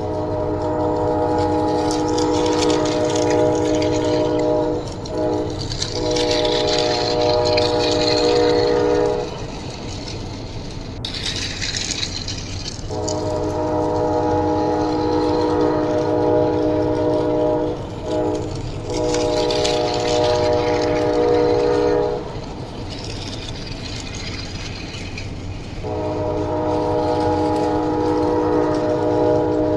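A train horn sounding in three long, steady blasts with pauses of a few seconds between them, each blast briefly broken once or twice. A steady rumble runs underneath throughout.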